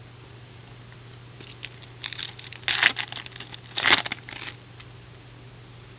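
Trading card pack wrapper being torn open and crumpled: a run of crinkling, tearing bursts starting about a second and a half in, loudest twice around the middle, then stopping.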